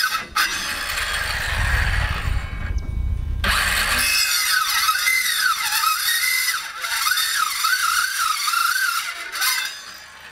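A faulty Skil circular saw whose motor runs unevenly. There is a rough whir at first, then a whine that wavers irregularly up and down and drops away near the end, as the saw fails to run properly.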